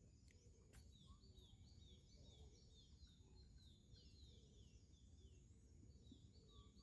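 Faint background: a bird calling in a quick run of short falling chirps, about three a second, over a thin steady high-pitched whine.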